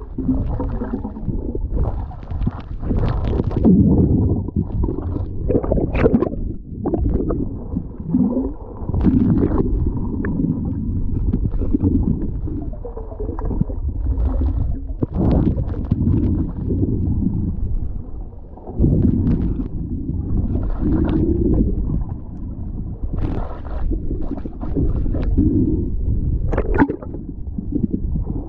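Underwater sound picked up through a camera's waterproof housing: a muffled, uneven low rumble and gurgle of moving water. Scattered clicks and scrapes come through as a gloved hand works over shell-crusted rock.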